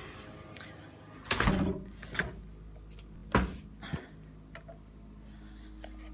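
A balcony door being handled and shut: a few knocks and thuds, the loudest about one and a half seconds in and again about three and a half seconds in.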